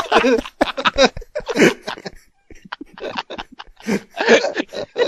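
People laughing in short, broken bursts, with some coughing.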